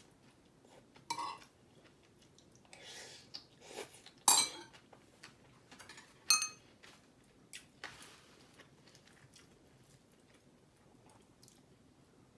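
Eating utensils clinking and scraping against a bowl of mixed rice: a handful of sharp clinks with a brief metallic ring, the loudest a little past four seconds in, with softer scraping between.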